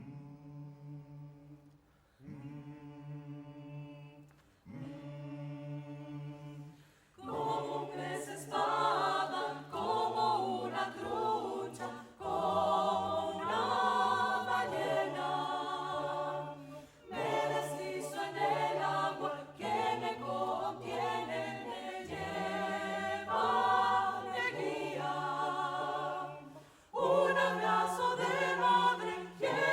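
Choir singing. It starts with three short, soft phrases, then the fuller choir comes in louder from about seven seconds in, with short breaks between phrases.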